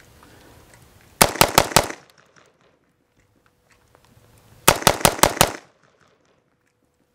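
F1 Firearms HDR15 AR-15 rifle in .223 Wylde, fitted with a muzzle brake, fired rapidly in two quick strings of about five or six shots each. The first string comes about a second in, the second just under five seconds in.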